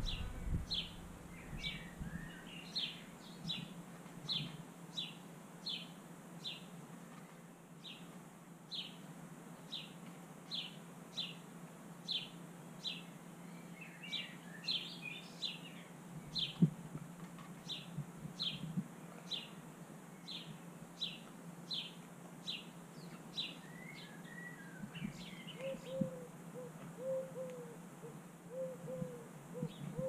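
A small songbird calls repeatedly in the background: a short high note about once or twice a second, broken by bursts of twittering chirps now and then. Near the end a run of short low notes joins in, over a faint steady hum.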